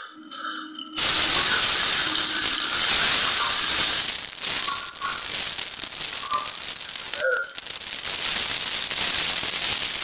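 Fire extinguisher discharging into a burning microwave oven: a loud, steady hiss of spray that starts about a second in and holds evenly, putting out the fire.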